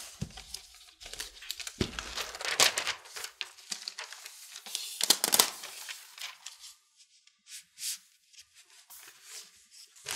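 Protective paper wrap being peeled off a new laptop, crinkling and tearing. The rustling is busiest in the first half and thins to a few soft rustles near the end.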